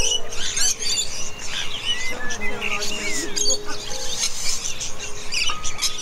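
Background music of long held notes, with small birds chirping and twittering over it throughout.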